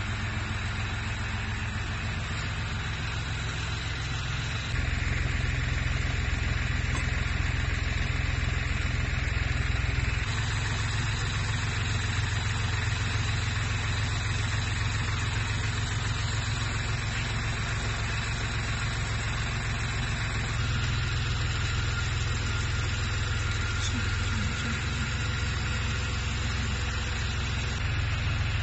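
Mini excavator engine running steadily with a low hum; its level steps up or down abruptly a few times.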